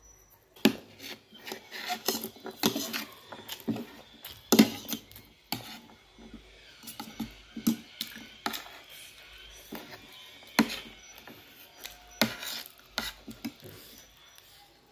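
Eating instant noodles: slurping and chewing, with a metal spoon and fork clinking and scraping on the plate in irregular sharp clicks.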